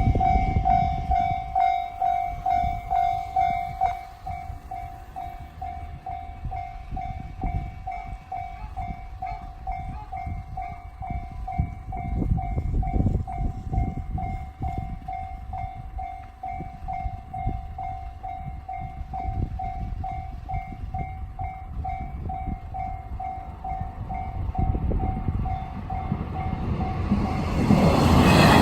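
Japanese level-crossing warning bell, the JR standard electronic tone, ringing in an even rhythm of about two strikes a second, louder for the first few seconds. A train's rumble builds up over the last few seconds as it reaches the crossing.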